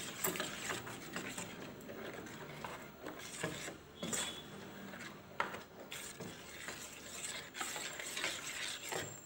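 Metal spoon stirring a thin batter of ground rice and coconut in a steel bowl: a steady wet swishing, with a few clinks of the spoon against the bowl.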